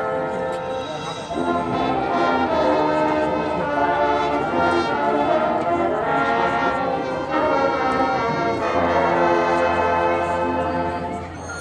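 Marching band brass section playing loud sustained chords that shift to a new chord every second or two, easing off near the end.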